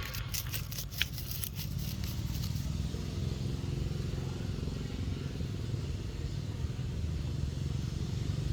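A motor running steadily with a low rumble. A scatter of clicks and crackles runs through the first two seconds or so, with one sharper click about a second in.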